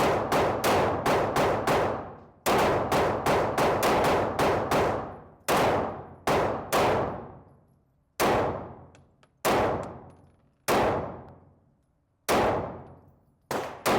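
Handgun shots echoing, each with a long ringing tail. The first few seconds bring quick strings of several shots a second, then single shots about a second apart.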